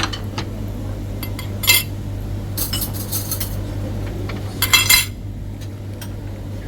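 Metal serving utensils clinking against dishes as food is served at a buffet: a few short clinks and rattles about two, three and five seconds in, over a steady low hum.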